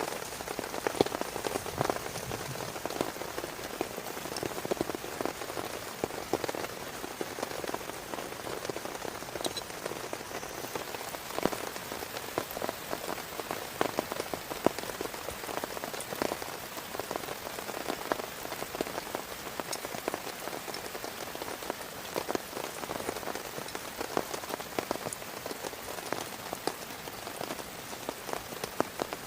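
Heavy rain falling steadily, a dense hiss dotted with the sharp ticks of large drops striking a surface close by.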